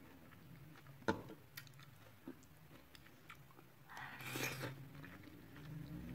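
Quiet chewing and mouth sounds of a person eating spicy instant noodles, with scattered small clicks. There is one sharp click about a second in and a brief noisy burst about four seconds in.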